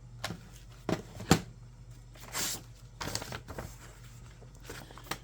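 Handling noise from a plastic wall clock being picked up and turned over: a few sharp clicks and knocks, the loudest about a second in, and a short rustle.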